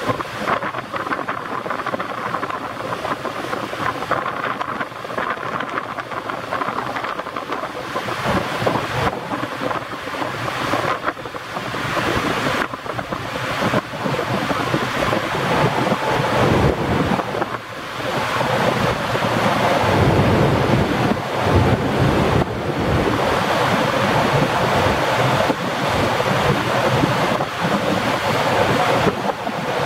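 Boeing Jetfoil 929-100 running foilborne at speed, a steady rushing of its waterjets and stern spray that grows louder about two thirds of the way through. Wind buffets the microphone.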